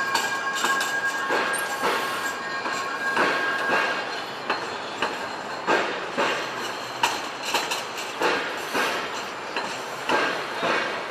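Multi-car TRAX light rail train passing on street track. For the first four seconds or so its wheels squeal with a steady high tone, then a run of sharp clacks follows as the wheels cross rail joints.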